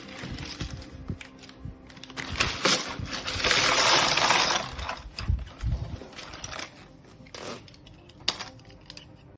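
Hard plastic keycaps clicking and clattering as they are handled, with a louder stretch of rattling noise about three and a half seconds in, lasting about a second.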